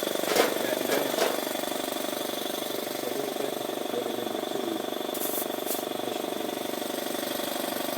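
Air compressor running with a steady, rapidly pulsing drone while a little air is put into a bicycle tire. A few sharp clicks come in the first second or so, and two short hisses of air come about five seconds in.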